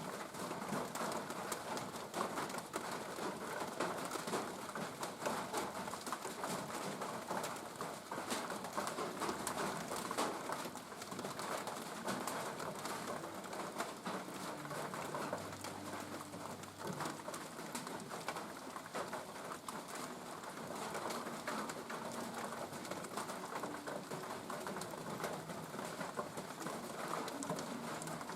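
Steady rain falling, a dense even patter of drops. A bird gives a few low calls about halfway through and again near the end.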